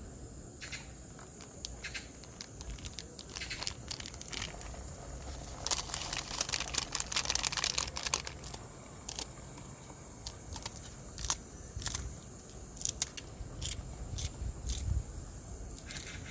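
Crinkling and rustling with scattered sharp clicks, loudest in a dense burst from about six to eight seconds in.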